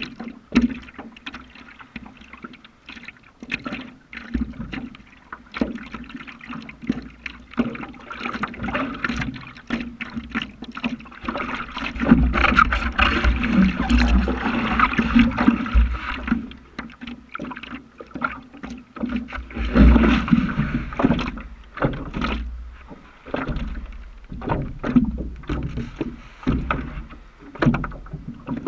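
Water sloshing and splashing against a stand-up paddleboard close to the microphone, with irregular paddle strokes dipping and pulling through the water. It grows louder for a few seconds about twelve seconds in and again around twenty seconds, with a low rumble of wind on the microphone.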